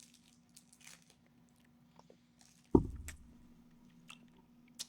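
Scattered small crinkles, clicks and mouth sounds as a propolis cough drop is taken out and put in the mouth, with one sharp thump a little past halfway.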